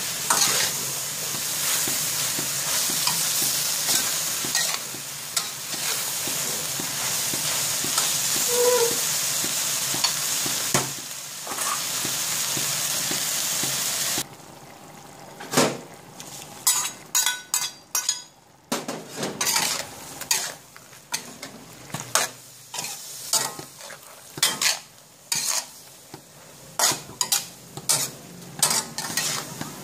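Mushrooms and vegetables sizzling loudly in a hot wok as they are stir-fried. About halfway through the sizzle suddenly drops much quieter, and a metal ladle scrapes and clinks against the wok in quick, irregular strokes.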